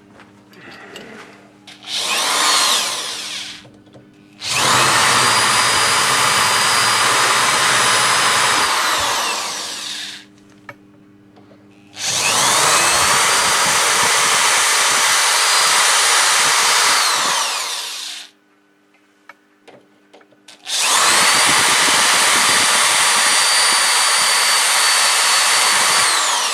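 Electric drill boring out a hole in four runs: a short burst, then three long runs of about five to six seconds each. The motor whine rises as it spins up and falls away as each run stops.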